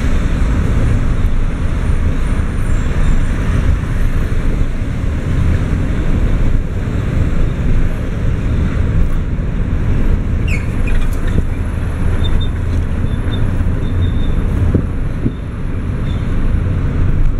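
Steady road noise inside a moving taxi's cabin: a low rumble of the engine and tyres.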